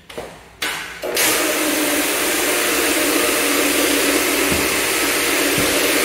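Counter-rotating brush (CRB) floor machine switching on about a second in and running steadily, its brushes scrubbing laminate flooring.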